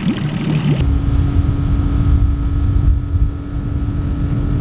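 A Mercury outboard motor running at a steady speed as the boat cruises: a steady whine over a low rumble. Under a second in, a stretch of music cuts off abruptly as the motor sound begins.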